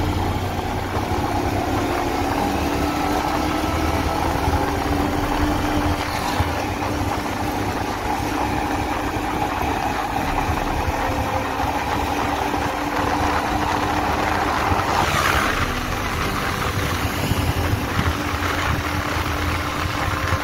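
Motorcycle engine running steadily while riding at road speed, with wind rushing past the microphone. About fifteen seconds in, a brief, louder rush of noise swells and fades.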